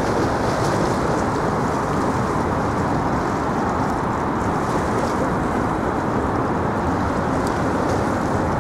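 Steady outdoor rushing noise from wind and distant city traffic, even throughout with no distinct events.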